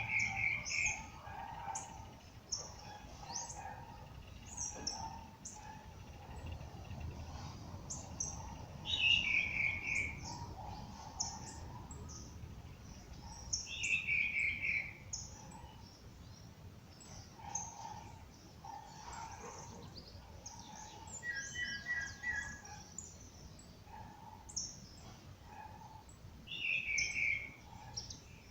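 Several wild birds singing together. One repeats a short song of notes stepping downward in pitch four times, each about a second and a half long, over high chips and lower whistled notes from other birds.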